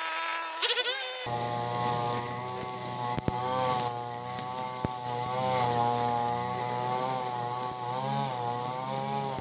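Ogawa 26cc two-stroke brush cutter running at high revs. About a second in, the sound changes abruptly to the nylon trimmer line cutting thick, long grass, with a hiss over the engine note, whose pitch wavers as the load comes and goes. Two sharp ticks stand out in the middle.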